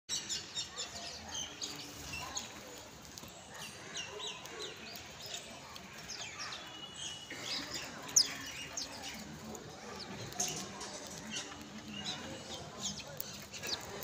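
A flock of house sparrows chirping: many short, quick chirps overlapping throughout, with one sharp click about eight seconds in.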